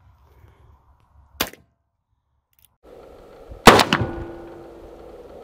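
Heritage Rough Rider single-action .22 rimfire revolver firing: a sharp crack about a second and a half in, then a louder shot near four seconds in. The louder shot is followed by a short metallic ringing that dies away within about a second.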